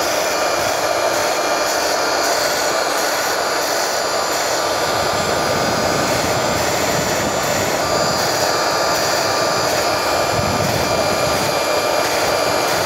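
Round-knife cloth cutting machine running steadily, its motor whining, while the built-in sharpening stone is held against the spinning circular blade to sharpen it.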